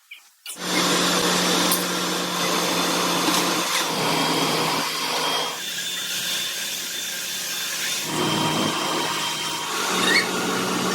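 An electric power tool or machine tool running steadily under load, a constant hum under a dense hiss. It starts about half a second in, and its tone shifts a little in the middle and again near the end.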